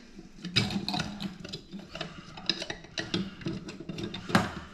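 Irregular metallic clicks, taps and knocks of a long screwdriver being worked down a bathroom sink drain to clear hair, with one sharper knock near the end.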